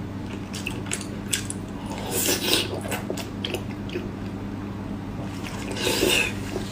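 Close-miked chewing and wet mouth sounds of someone eating pork, with scattered small clicks and two louder bursts, about two seconds in and near the end, over a steady low hum.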